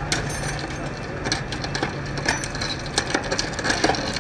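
Flatbed tow truck's engine running with a steady low hum, over irregular clinks and crunches of handled crash debris.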